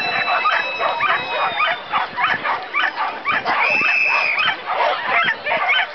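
Dogs barking over and over, several barks a second, overlapping one another. A little after the middle, a high steady beep sounds for about half a second.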